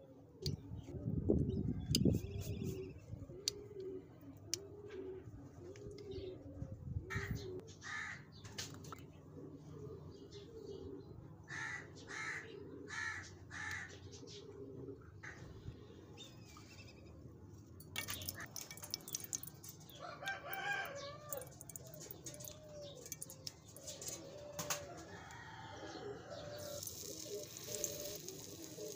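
Domestic chickens clucking and calling, with a spoon stirring and scraping thick batter in a bowl about a second in. Near the end a steady hiss of frying oil begins.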